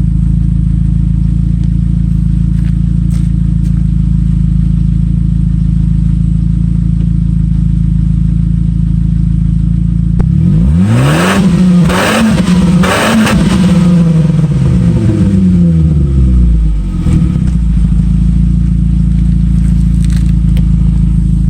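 Saab 95's engine running through an exhaust with the muffler removed and its leaks fixed: a steady idle, then revved up and down in several blips about ten seconds in, falling back to idle about seven seconds later.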